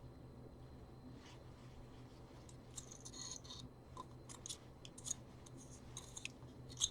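Faint scattered clicks and scratches of small parts and wires being handled over a low steady hum. There is no motor whine: the Dustbuster's brushed DC motor fails to run when it is powered, because it is dead.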